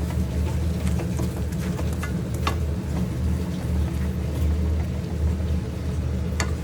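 A steady low rumble, with a few light clicks of a spoon against the pan as date-palm jaggery cooks and is stirred.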